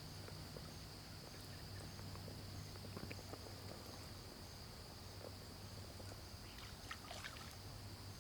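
Faint river ambience heard from a fishing boat: a steady high insect-like drone over a low hum, with small knocks and a brief splashy rattle about seven seconds in.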